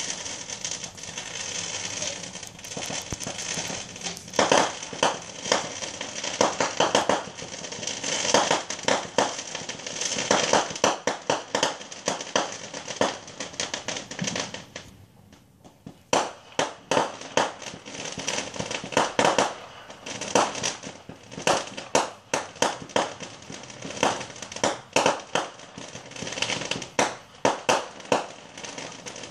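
Fireworks launching and bursting into gold crackling stars: rapid clusters of sharp pops and crackles, with a brief lull about halfway through.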